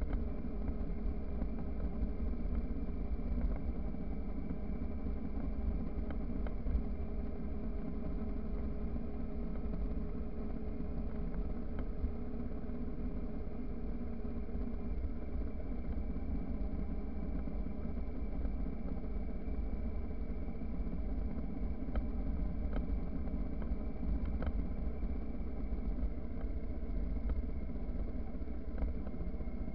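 Motorcycle engine running at a steady cruise, its note unchanging, over a heavy low rumble of wind on the microphone and tyre noise on a gravel road.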